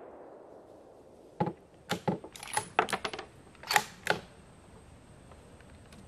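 Bolt of a Ruger American Predator bolt-action rifle in 6.5 Creedmoor being worked between shots: a quick string of sharp metallic clicks and clacks, then one more click near the end.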